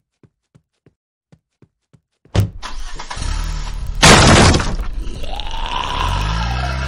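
Footsteps click on a hard floor about three times a second, then stop. A sudden loud crash follows about two seconds in, with breaking and shattering glass peaking about four seconds in as glass doors are smashed open, then a low steady hum near the end.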